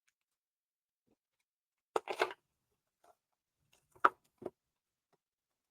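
Trading cards and booster-pack wrappers being handled: a short rustle about two seconds in, then two light clicks about two seconds later.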